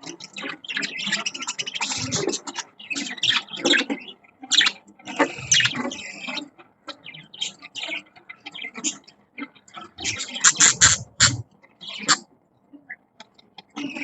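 Budgerigars chirping and chattering in irregular, overlapping bursts, with a short lull shortly before the end.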